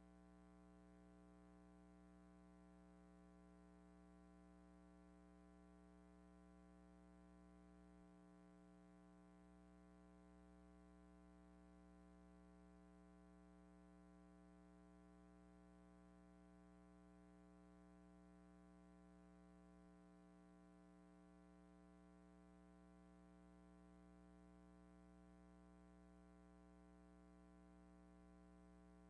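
Near silence: a faint, steady hum with no other sound.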